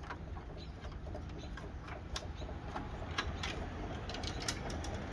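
Scattered, irregular light clicks and taps of hand work on small parts, over a low steady hum.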